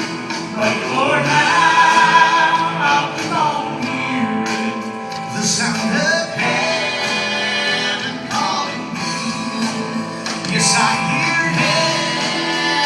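Gospel vocal trio singing with instrumental accompaniment.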